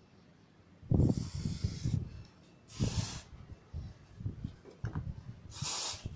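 Aerosol spray can sprayed in short hissing bursts: one about a second in, a sharper one about three seconds in, and another near the end, with low bumps and rubbing from handling between them.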